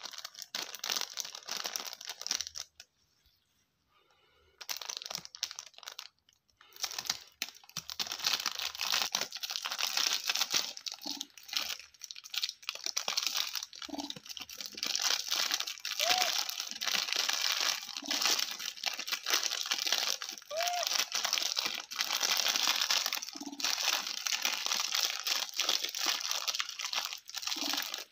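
Crinkly plastic snack wrapper crackling and tearing as a baby monkey picks and pulls at its opening, in dense irregular bursts that go quiet for a few seconds near the start.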